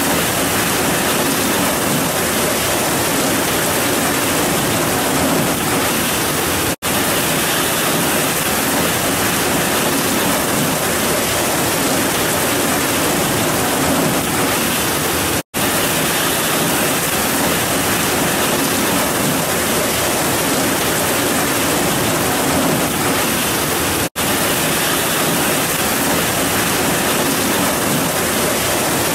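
Heavy rain pouring steadily, a dense even hiss with no thunder heard. The sound cuts out for an instant three times, about every nine seconds.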